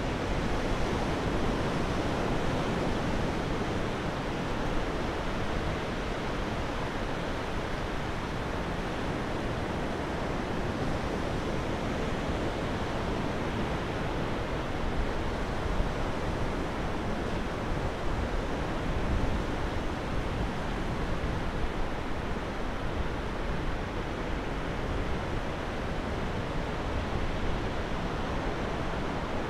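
Surf breaking and rolling in on a sandy beach from a choppy sea, a steady rush of noise, with some wind rumbling on the microphone.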